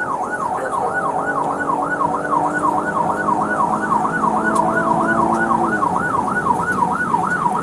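Police car siren in fast yelp mode, a tone warbling rapidly up and down about three to four times a second, with a lower steady hum beneath it that stops about six seconds in.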